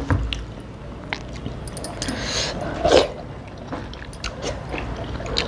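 Close-miked eating sounds: chewing and mouth smacks, and fingers squishing rice and curry on a plate, with scattered small clicks and smacks.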